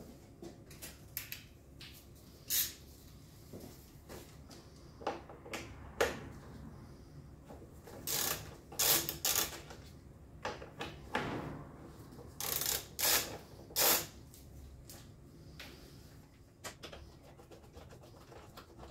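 Scattered clicks, taps and scrapes of hand work on a motorcycle's seat and rear subframe: a hand tool and gloved hands handling parts, with a run of louder scrapes and rustles in the middle.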